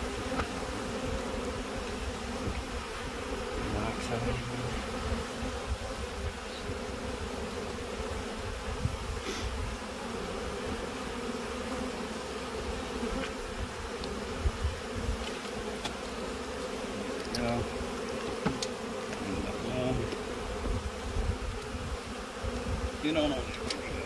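A honeybee colony buzzing over an open hive: a steady hum, with a few light clicks now and then.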